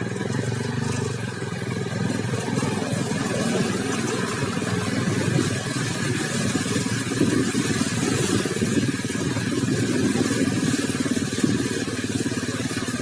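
Motorcycle engine running steadily while riding, a low drone with fast even pulsing.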